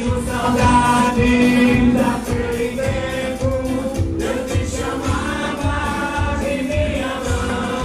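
Religious procession hymn sung by many voices together, with accompaniment and a steady beat.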